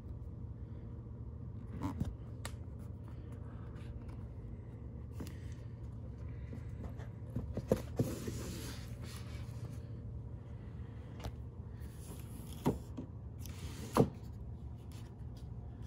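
Rigid cardboard packaging being opened by hand: the box lid sliding off the base with a rasping slide, twice, and a few sharp knocks as box parts are set down, the loudest about 14 seconds in.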